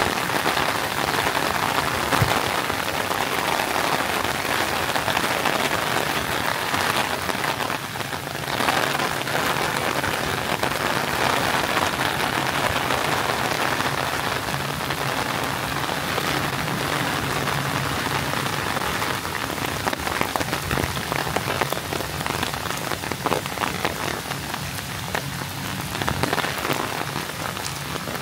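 Heavy rain falling steadily, a dense hiss that dips briefly about eight seconds in.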